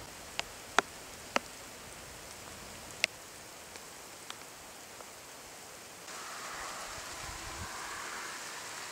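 Steady hiss of rain during a thunderstorm, with a few sharp clicks in the first three seconds. The hiss grows louder about six seconds in.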